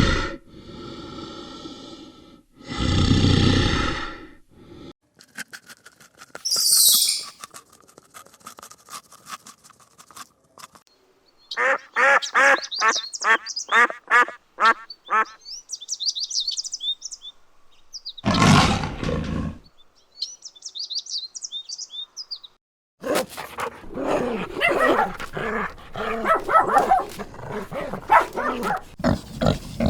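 A series of different animal calls, one clip after another with short gaps. There are loud calls at the start and about three seconds in, a run of evenly spaced repeated calls in the middle, high chirping, and a dense run of calls in the last several seconds.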